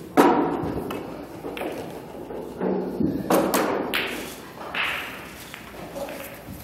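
A pool shot: the cue tip strikes the cue ball with a sharp knock, followed over the next few seconds by several fainter clacks and knocks as the billiard balls hit each other and the cushions.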